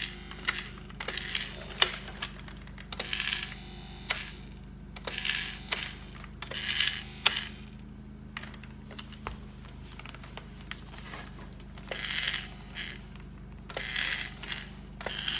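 Plastic clicks and scratchy rubbing as hands work the eye mechanism inside a furless animatronic toy bear's head, over a steady low hum.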